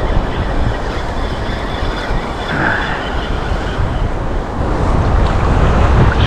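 Steady wind buffeting the microphone, a low rumble over the wash of choppy surf water.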